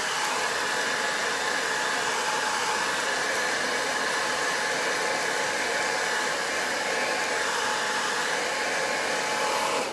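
Handheld hair dryer running steadily, blowing hot air onto cellophane basket wrap to shrink it; the fan's rush carries a faint steady whine, and it cuts off abruptly at the end.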